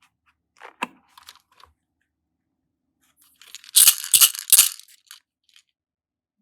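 Slime being pulled up and handled, making crackling, tearing sounds. A few faint clicks come first, then a loud second or so of crackling starting about three and a half seconds in.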